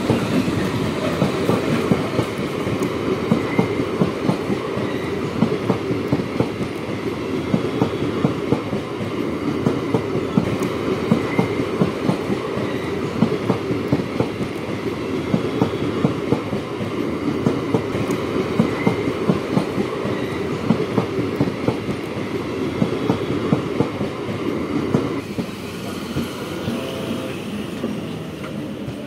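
Passenger train coaches rolling past at speed, wheels clattering over rail joints in a rapid, steady clickety-clack over a heavy rumble. The sound eases near the end as the last coaches go by.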